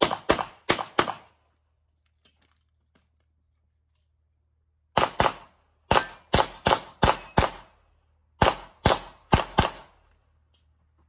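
9mm pistol shots fired in fast strings: about four quick shots at the start, then after a pause of about four seconds a longer run of a dozen or so shots in close groups.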